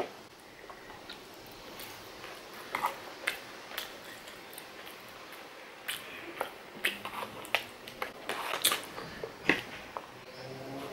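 Close-miked eating sounds: a metal fork scraping and tapping in an aluminium foil takeaway tray while noodles are chewed, heard as scattered short clicks and mouth smacks, more of them in the second half.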